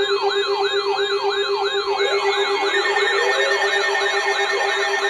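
Electronic siren in a fast yelp, a falling sweep about three times a second over a steady tone. About two seconds in, a slower rising wail joins it.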